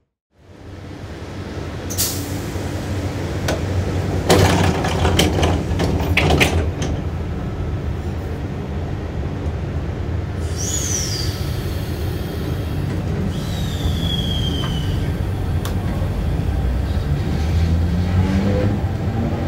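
Sydney Trains V-set intercity electric train rolling slowly, with a steady low hum from its camshaft-controlled traction motors and a run of clicks and clunks about four to seven seconds in. Two brief high squeals fall in pitch in the middle, and near the end the motor hum starts to rise in pitch as the train takes power.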